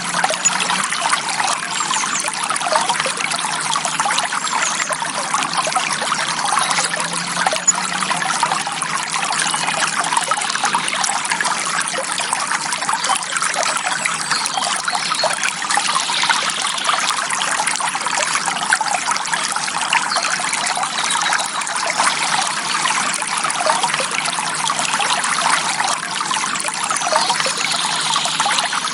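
Forest stream flowing gently, a steady trickling babble of water.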